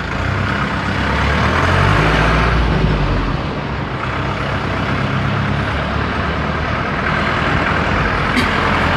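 Minibus engine running with road and tyre noise, heard from inside the moving vehicle; the engine is louder between about one and three seconds in.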